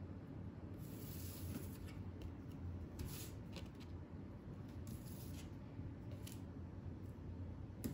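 Tarot cards being slid and brushed across a tabletop by hand: a few faint, short scraping swishes.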